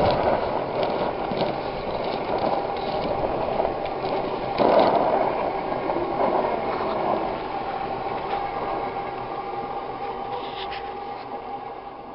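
Blower drawing air through a homemade downdraught wood gasifier: a steady whirring with a constant whine, and a few light clicks, with the loudest moment about five seconds in. Glowing coals in the fire tube show the draught pulling the fire down through the wood chips.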